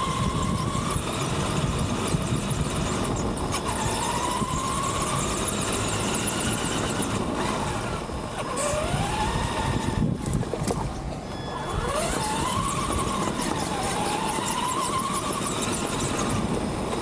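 Radio-controlled car's electric motor and drivetrain whining, the pitch rising and falling over and over as the throttle changes. Under it is a steady rush of noise from the car moving.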